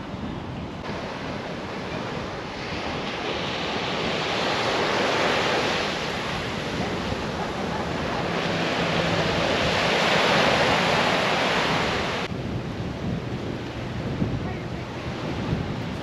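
Small waves breaking and washing up on a sandy beach, swelling louder twice, with wind buffeting the microphone. About twelve seconds in, the surf drops to a quieter wash.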